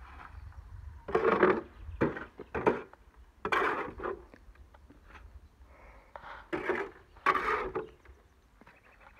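Shovel scraping wet concrete in a metal wheelbarrow pan and tipping it into wooden plank formwork, heard as about half a dozen separate scrapes and slaps with short pauses between.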